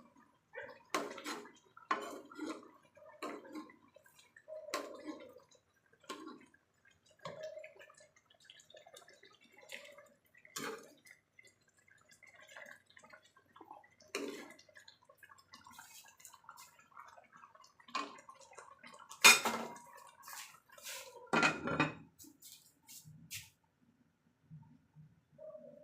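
Kitchenware clinking and knocking on and off, with wet, liquid sounds among them; one louder clank comes about two-thirds of the way through.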